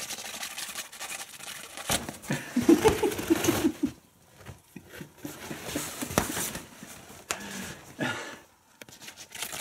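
Thin nylon fabric of a pop-up play tent rustling and crinkling as cats scramble and paw inside it, with scattered light knocks and scratches. A brief pitched sound comes about two and a half seconds in, lasting just over a second.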